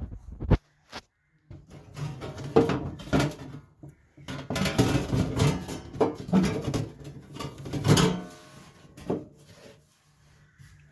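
Irregular knocks, clatters and scrapes of a steel repair panel being handled and offered up into a car's floor pan, busiest in the middle and dying away near the end.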